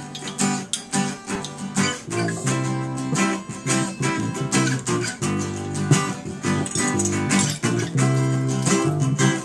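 Instrumental intro of a song: acoustic guitar strumming chords in a steady rhythm.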